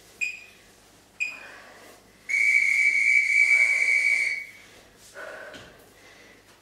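Workout interval timer counting down: two short beeps a second apart, then one long, steady beep of about two seconds at the same pitch, marking the end of the interval.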